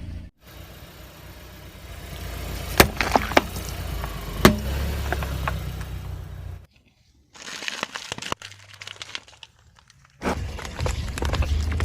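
A car tyre rolling over and crushing things: crinkling, crackling and sharp cracks over a low rumble, with the loudest cracks about three and four and a half seconds in. It comes as several short clips that cut off abruptly.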